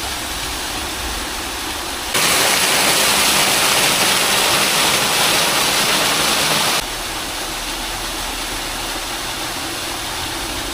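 Waterfall, a steady rush of falling water. It turns suddenly louder and brighter about two seconds in, and drops back to the earlier level about seven seconds in.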